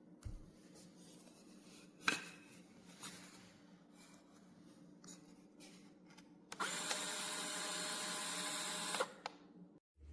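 Nuttii portable electric conical burr coffee grinder's motor running steadily for about two and a half seconds, then cutting off, after a few light clicks and knocks.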